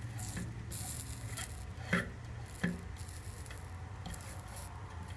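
Electric soldering gun humming steadily while soldering a patch onto a steel fuel tank, with on-and-off bursts of hiss. Two sharp clicks come about two seconds in and again a little later.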